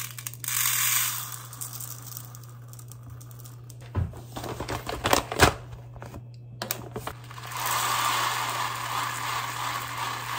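Dry rice grains pouring into a plastic measuring cup: first white rice from a plastic jar, then brown rice tipped from a paper bag, each a hissing patter lasting a few seconds. Between the two pours come sharp clicks and paper rustles from handling the lid, clip and bag, over a steady low hum.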